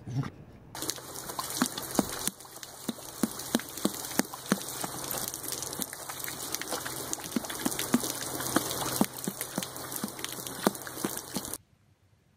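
Garden hose spraying water in a steady hiss, with frequent irregular splats as a horse mouths and drinks at the stream. It cuts off suddenly near the end.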